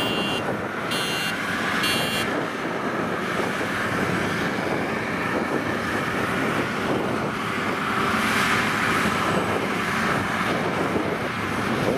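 WD102PRO rice combine harvester running steadily while it cuts and threshes. For about the first two seconds an electronic warning buzzer on the machine beeps about once a second, then stops.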